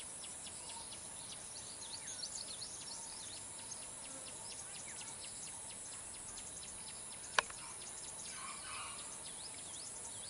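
Many birds chirping in quick, short calls over a steady background hiss of forest ambience, with one sharp click about seven seconds in.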